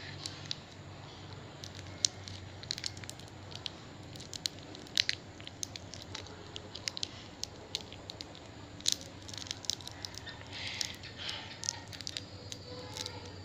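A small plastic snack wrapper being handled and picked open in the fingers, giving irregular sharp crinkles and crackles over a faint low hum.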